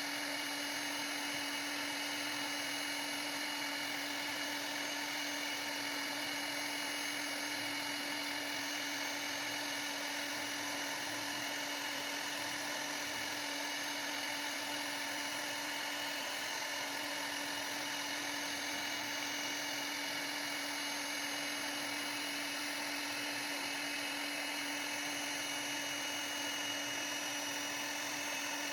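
CNC router spindle running steadily as it carves, a constant high-speed whine over a hiss.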